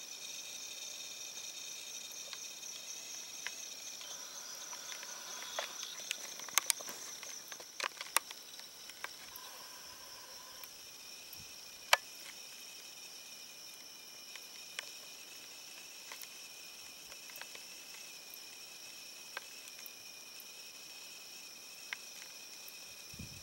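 Steady chorus of insects, several high pitched trills held without a break, with a few sharp clicks scattered through it.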